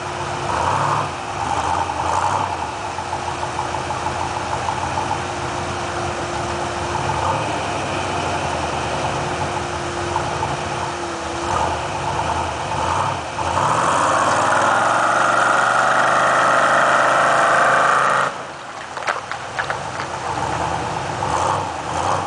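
Off-road 4x4 truck engine running at low speed while rock crawling, then revving hard for about four seconds partway through and dropping back suddenly to a low run.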